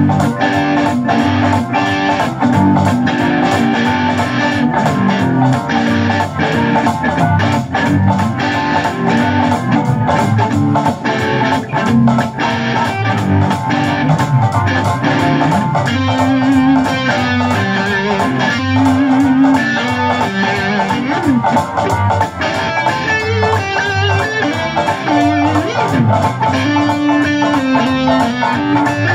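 Electric guitar played through an amplifier along with a backing track that has drums.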